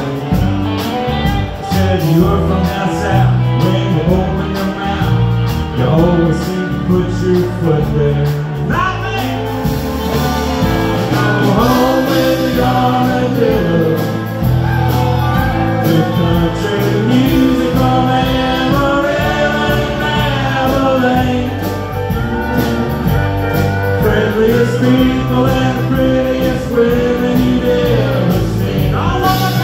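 Live country band playing a song, with singing over acoustic guitar and keyboards.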